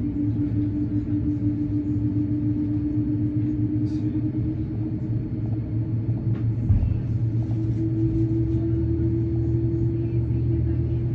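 Steady engine and airframe rumble inside a Boeing 787-9's cabin, with a steady hum whose tone steps up slightly about eight seconds in, and a single thump about two-thirds of the way through.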